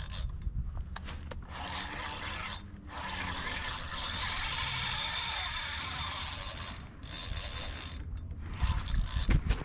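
Spinning reel's drag ratcheting out line in several runs, the longest lasting about four seconds, as a hooked fish pulls against the bent rod.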